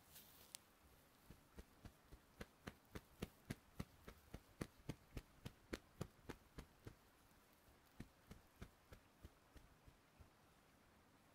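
Soft rhythmic tapping of hands, as in a tapping massage, about three to four taps a second. It slows to a few scattered taps after a short pause and stops about ten seconds in.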